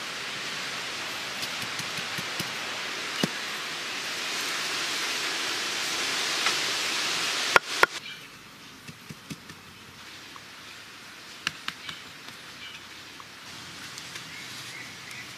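A steady hiss that slowly grows louder, cut off by two sharp clicks about halfway through. After that it is quieter, with scattered light taps and clinks of stone slabs being set in place.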